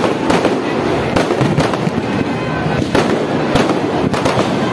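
Fireworks bursting overhead in a loud, rapid, irregular run of bangs and crackles.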